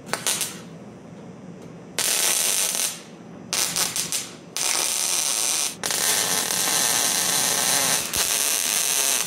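MIG welder arc crackling as it tacks the seam of a rolled 1/16-inch sheet-steel barrel: a short burst near the start, then several longer bursts with brief gaps between them.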